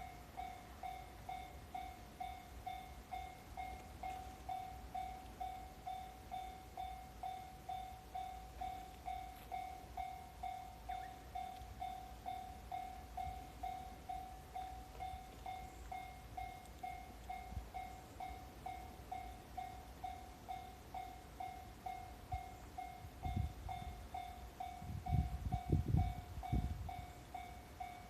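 Japanese railway level-crossing warning bell ringing: a steady electronic clang repeating about twice a second, the signal that a train is approaching the crossing. A low rumble swells near the end.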